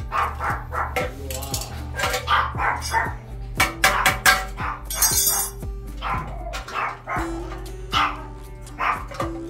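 A dog barking over and over in quick runs, over background music.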